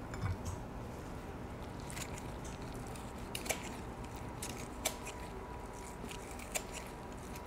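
A knife cutting a lemon: several faint, sharp taps spaced a second or more apart.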